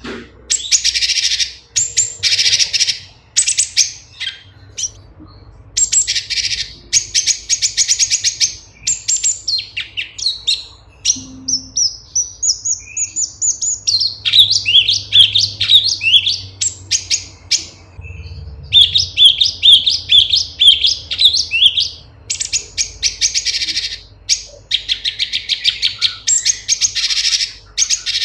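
Cucak cungkok, a leafbird, singing a loud, rapid, varied song: dense chattering and twittering phrases of a second or two each, with short pauses between them and a run of sharp falling notes in the middle.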